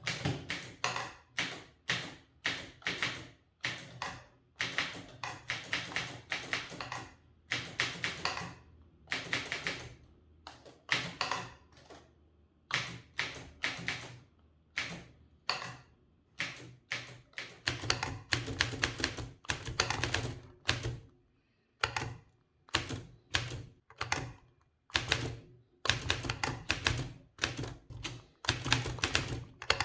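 Olivetti M20 manual typewriter being typed on: rapid type-bar strikes in irregular bursts, word by word, with short pauses between them.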